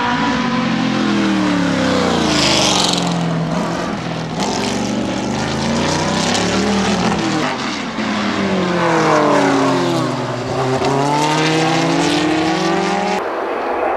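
Historic Can-Am race cars passing at speed one after another, their engines revving up and then dropping in pitch as each car goes by, with two cars overlapping partway through. The sound changes abruptly near the end.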